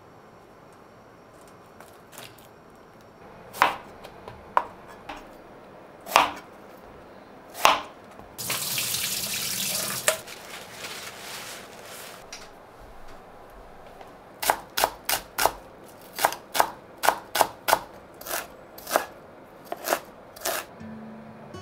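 Kitchen knife chopping vegetables on a cutting board: a few single cuts, then a steadier run of chops, about two a second, in the second half. A short burst of running water, like a tap turned on and off, comes in the middle.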